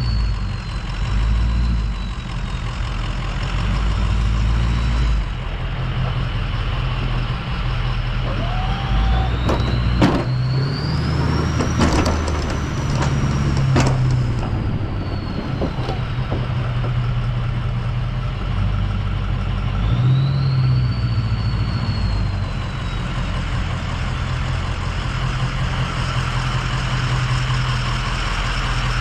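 Ford 6.0 Power Stroke V8 diesel in an F-250 working under load while plowing snow, its turbo whistle rising and falling twice with the revs. A few sharp knocks come in the middle as the plow blade works the snow.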